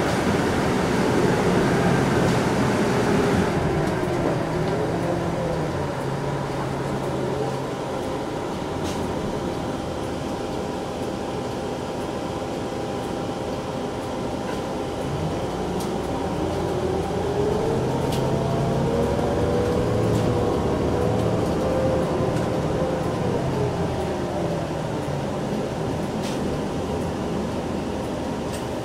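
Bus engine and drivetrain running as heard from inside the bus while it drives, with a whine that falls as it slows in the first few seconds, then rises as it speeds up about halfway through, holds, and falls away again.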